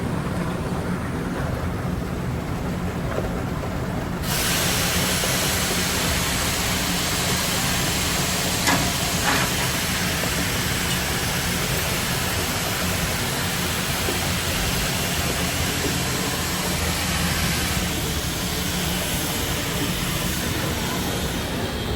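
Steam locomotive 1309 letting off steam: a loud, steady hiss starts suddenly about four seconds in, over a low, steady rumble.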